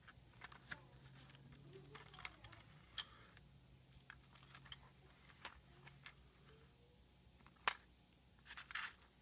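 Faint scattered clicks and light rustling as a hard plastic accessory case and its paper insert are handled and small copper and brass TIG gas-lens parts shift inside. The sharpest click comes about eight seconds in, followed by a short run of smaller clicks.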